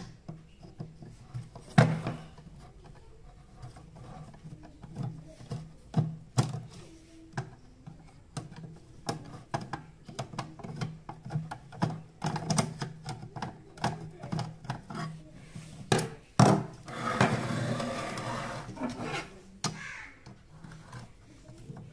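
Screwdriver and hands working on a blower room heater's sheet-metal casing, making scattered clicks, taps and small metal knocks, with a longer rasping stretch about three-quarters of the way through.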